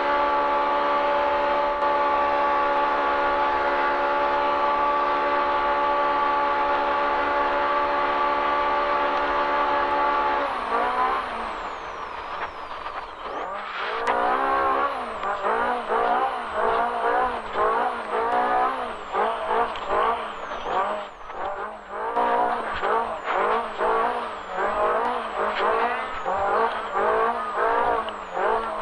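Polaris RZR Pro R's four-cylinder engine heard from inside the racing UTV, running at one steady high pitch under full throttle for about ten seconds, then its revs rising and falling rapidly over and over.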